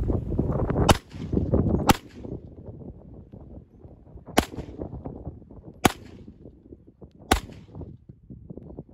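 Handgun firing five single shots, spaced one to two and a half seconds apart, each a sharp crack with a short echo. A low rumble fills the first two seconds and dies away after the second shot.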